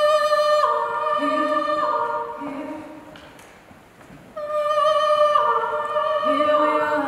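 Unaccompanied voices singing long held notes in two phrases. In each phrase a higher voice steps down in pitch from note to note while a lower voice comes in beneath it.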